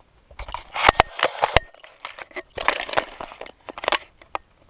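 Close crunching and crackling with several sharp clicks, loudest about a second in.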